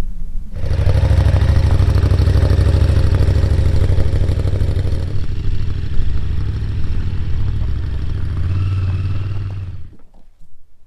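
Motorcycle engine running steadily at low revs, starting abruptly and cutting off abruptly near the end.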